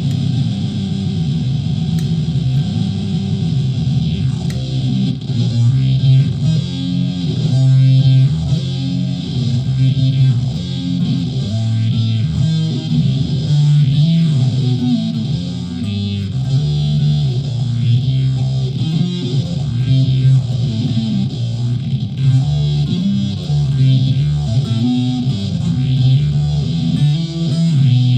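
Solid-body electric ukulele played through a home-built clone effects pedal into a small PA speaker, giving a driven, effected tone as it picks out a run of notes and riffs.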